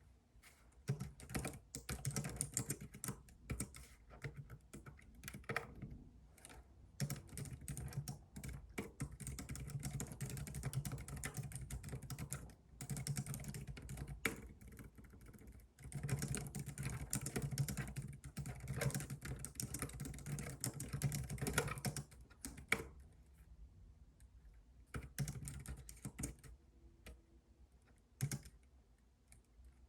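Computer keyboard typing: fast, continuous runs of key clicks broken by brief pauses, thinning to a few scattered keystrokes in the last several seconds.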